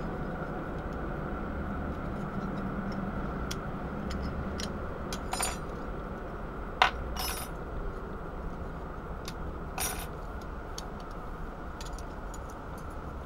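Small metal plates of a folding hobo stove clicking and clinking as they are worked apart by hand: scattered short clicks, the sharpest about seven seconds in, over a steady low background noise.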